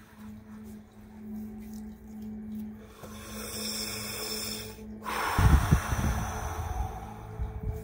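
A person breathing deeply in Wim Hof method breathing, with a loud, forceful breath out through pursed lips about five seconds in that blows against the microphone.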